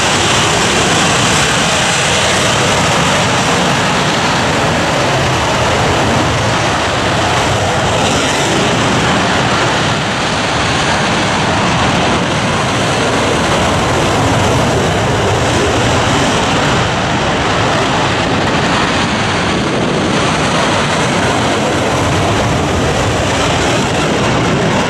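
Loud, steady jet noise from a group of KAI T-50B jet trainers, each driven by a single afterburning turbofan, running at high power.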